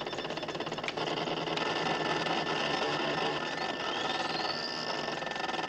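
Mainframe computer running after its console buttons are pressed: a fast, even mechanical clatter under steady electronic tones, with a rising whistle about four seconds in.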